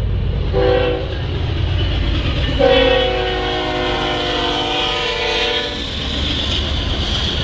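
Norfolk Southern freight locomotive's air horn sounding for a grade crossing: a short blast about half a second in, then a long blast of about three seconds, its chord sliding slightly lower in pitch. The low rumble of the diesel locomotives runs underneath, with the train rolling over the rails near the end.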